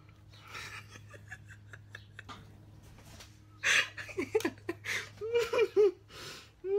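A woman laughing in a run of short, breathy giggles starting about halfway through, after some faint rustling.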